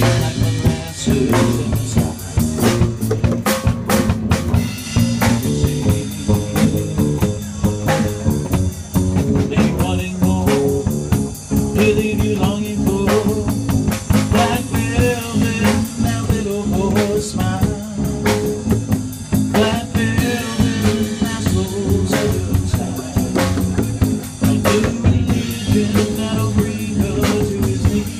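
Live band music: a man singing while playing an acoustic bass guitar, with a drum kit keeping a steady beat.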